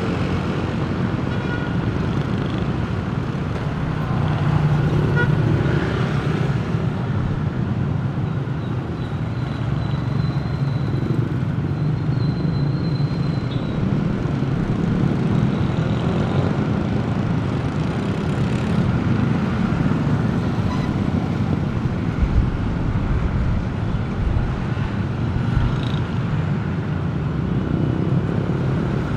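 Street ambience of steady road traffic noise, recorded through an Eachshot Comica CVM-VM10 mini condenser microphone, with a faint thin high tone for a few seconds midway.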